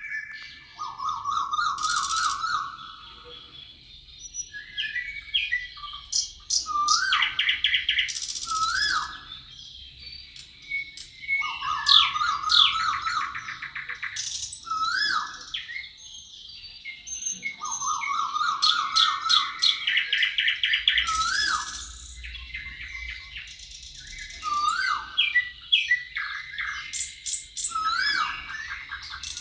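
Several forest birds singing and calling together. One bird repeats a song of rising whistled notes ending in a trill every several seconds, and other birds add faster chirps and trills over a faint steady high tone.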